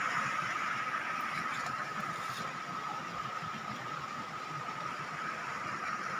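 Running water making a steady, even rushing sound.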